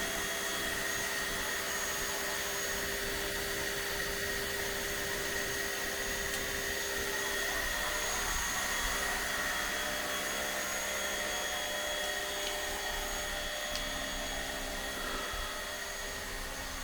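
Makita 240-volt electric pressure washer running at maximum pressure: a steady motor whine over the hiss of the water jet. It dips slightly in level near the end.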